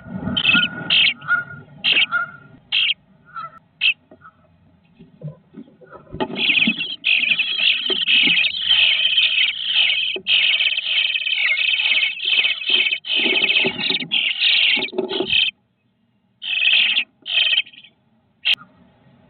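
Nestling birds calling: a few short bursts of high-pitched calls, then a loud continuous run of calling from about six seconds in that stops suddenly about fifteen seconds in, followed by a few more short bursts.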